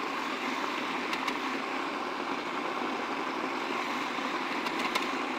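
Food processor running steadily, pureeing fresh corn kernels with eggs into a thin batter, with a few faint clicks on top.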